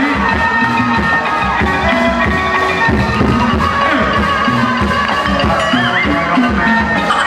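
Thai traditional ensemble music of the kind that accompanies likay theatre: melodic instruments playing over drums and wood-block percussion that keep a steady beat.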